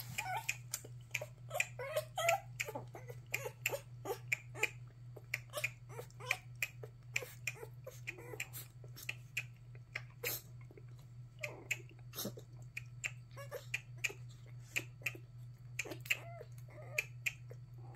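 Newborn puppy suckling milk from a nursing bottle: quick wet clicking and smacking of its mouth on the rubber nipple, several clicks a second, with a few brief squeaks from the puppy.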